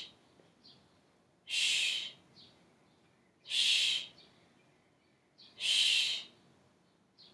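A person breathing in rhythm with calf raises: a hissing exhale through the mouth about every two seconds, on each lift, with a faint inhale between.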